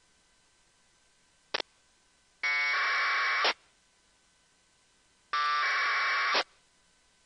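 APRS packet radio data bursts received through a software-defined radio: two harsh buzzing bursts of 1200-baud AFSK tones, each about a second long, with a short click about a second and a half in.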